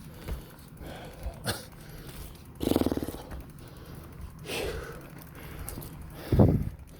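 A man's heavy, voiced exhales and groans, three of them with the last the loudest, from being out of breath while pushing a bicycle up a steep climb. Light clicks come between them.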